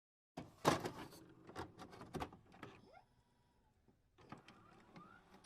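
Faint knocks and clicks: a handful close together over the first half, then a single short click near the end.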